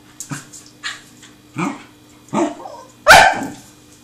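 Pembroke Welsh Corgi puppy barking in play: about five short barks in a row, the last one the loudest.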